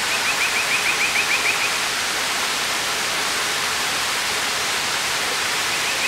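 Water spraying from a watering can's rose onto a plant's leaves: a steady hiss. A quick run of about ten high chirps comes over it in the first two seconds, and a couple more near the end.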